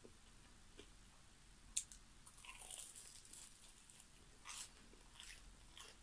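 Biting into the crispy fried batter crust of a Korean mozzarella corn dog: a sharp crack about two seconds in, a second or so of crackly crunching, then a few crunchy chews near the end.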